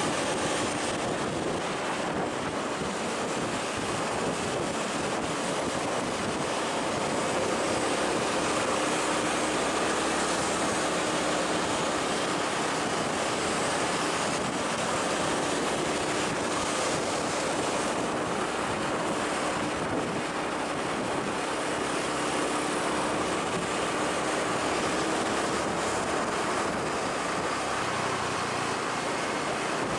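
A large vehicle's engine running steadily, a low hum that drifts slightly in pitch, under a loud, even rushing noise.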